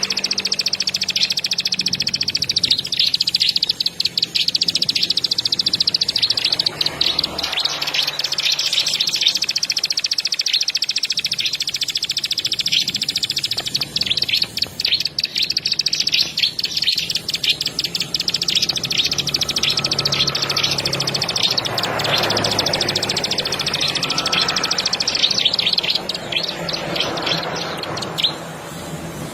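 Ciblek sawah, a prinia, singing a long, fast, high-pitched trilling song with hardly a break, in the rapid run-on 'ngebren' style. It slackens near the end.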